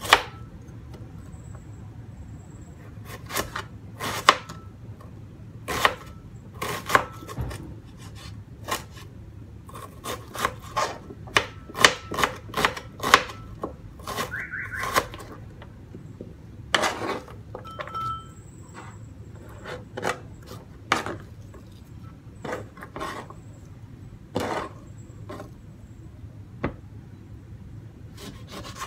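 Kitchen knife chopping an onion on a plastic cutting board: irregular knocks of the blade on the board, with a quicker run of chops about ten to thirteen seconds in.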